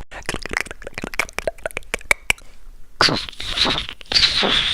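A person making a sound effect with their voice: a quick run of sharp clicks, a short pause about two and a half seconds in, then breathy, hissing vocal noises.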